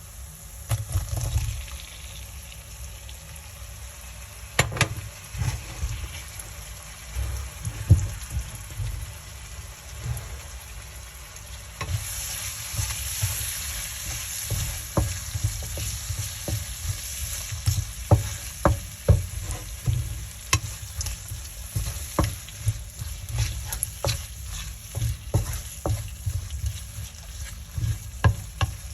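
Food frying in a pan while a spoon stirs, with frequent clicks and knocks of the spoon against the pan. A louder sizzle comes in about twelve seconds in.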